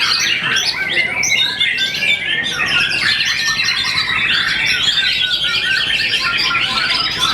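Songbird singing a fast, unbroken stream of varied chirps, trills and whistles, packed with mimicked calls of other birds.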